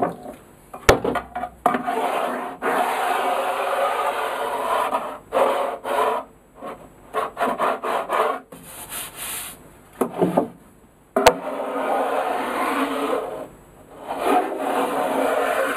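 A piece of wood dragged back and forth across a flat wooden jig surface, scraping in several long strokes and shorter ones, with two sharp knocks. This is a check for screw heads standing proud of the surface.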